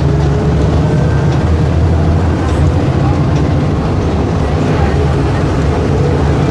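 Volkswagen 17.230 EOD bus's diesel engine running steadily with a deep, even rumble.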